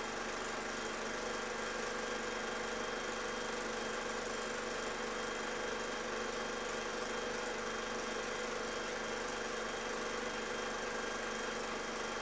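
A steady mechanical hum with hiss, unchanged throughout.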